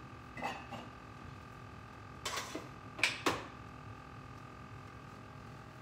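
Short clicks and scrapes of kitchen things being handled while coffee is made at a single-serve coffee maker: a few soft ones about half a second in, then two louder ones between two and a half and three and a half seconds in, over a faint steady hum.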